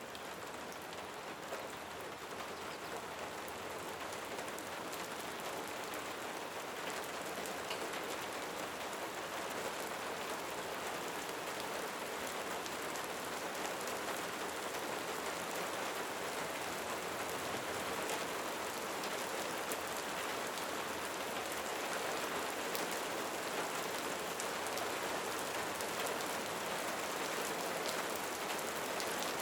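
Steady rain: a dense, even hiss with scattered single drops standing out, growing slowly a little louder.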